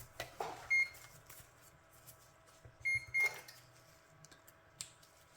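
Digital multimeter's continuity beeper giving three short beeps, one about a second in and two in quick succession around three seconds, as probes touch a circuit-board track and capacitor ends: the beep signals the track is continuous. Faint probe clicks and a sharp tick come between.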